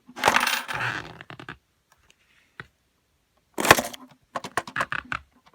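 LEGO vending machine mechanism working after two quarters go in: a short clattering rush of plastic parts and coins, a pause, then a sharp knock followed by a run of light plastic clicks and rattles as it dispenses a peanut butter cup.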